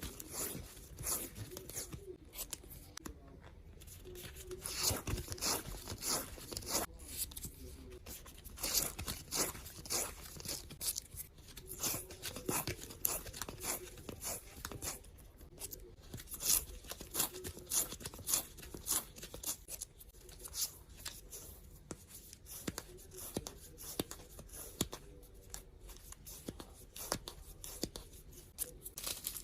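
Close-up handling of decorative tape and paper: a continuous run of short tearing and crackling sounds with light ticks and taps, as tape is pulled, torn and wound.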